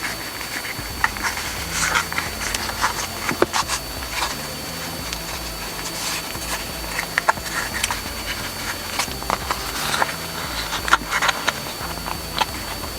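Hands handling and fitting a shift knob and its boot onto the shifter: irregular light clicks and rustling.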